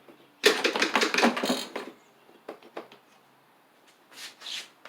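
Hard plastic parts clattering and knocking as the recoil starter cover is handled and fitted onto a Briggs & Stratton push mower engine. A dense run of clicks and knocks lasts about a second and a half, followed by a few light ticks and a short scrape near the end.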